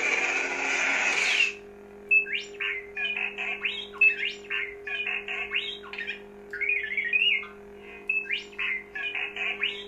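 A Proffie lightsaber's speaker plays the Kyberphonic "The Return" sound font. A dense ignition-type burst ends about a second and a half in. After that comes a steady low electric hum, with many quick rising swing whooshes as the saber is moved.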